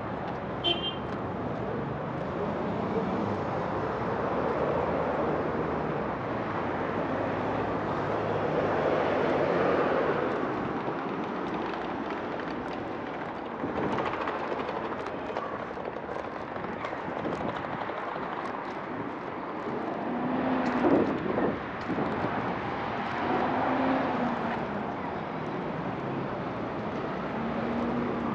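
City street ambience: steady traffic noise that swells as vehicles pass, loudest about ten seconds in and again around twenty-one seconds.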